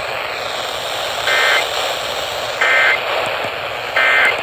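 Emergency Alert System end-of-message signal: three short, identical two-tone data bursts, evenly spaced about a second and a half apart, marking the close of the severe thunderstorm warning, over a steady radio static hiss.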